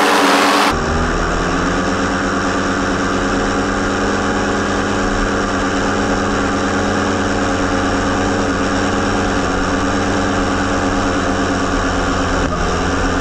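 Hirth 2703 two-stroke ultralight airplane engine driving a pusher propeller on a go-kart, running steadily at speed and heard up close from the kart, with a heavy low rumble under the engine note. The sound changes abruptly less than a second in, and the pitch lifts a little just after, then holds steady.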